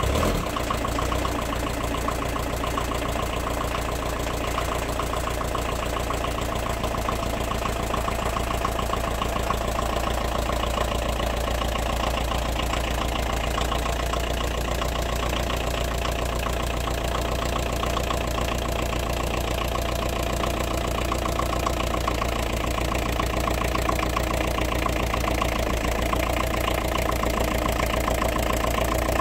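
Volkswagen T25 Transporter engine idling steadily after a cold start from four months' standing. The van rolls slowly out of the garage with the engine ticking over evenly.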